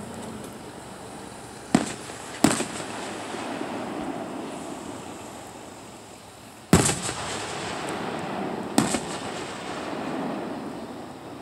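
Aerial firework shells of a distant fireworks display going off as separate sharp bangs, about four in a few seconds, the loudest about seven seconds in. Underneath runs a steady background murmur.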